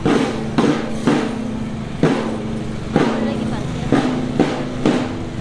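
Children's marching drum band playing, with sharp drum strokes about twice a second over a held tone.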